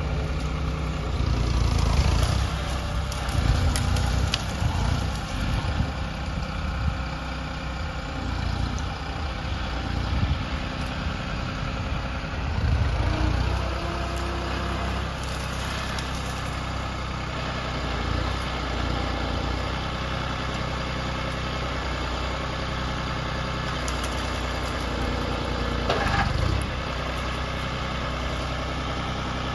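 A heavy machine's engine idling, louder and uneven through the first half, then running steadily, with one brief louder moment near the end.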